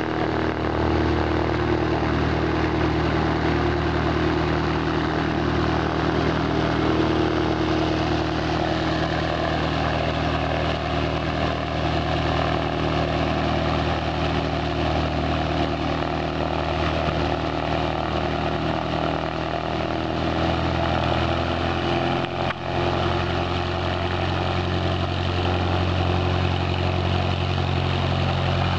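Piston engine and propeller of a light single-engine plane running steadily at taxi power. The engine note shifts slightly about three-quarters of the way through.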